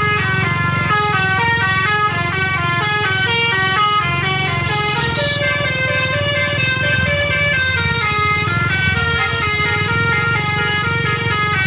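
A bus's Basuri telolet multi-tone air horn playing an Indian tune as a quick run of stepping notes, with the bus engine running underneath.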